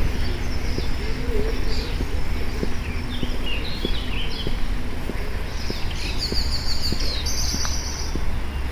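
Several wild birds chirping and singing in woodland, with a bright, rapid trill about six to seven and a half seconds in. Underneath runs a steady low rumble with soft, evenly spaced footfalls from walking.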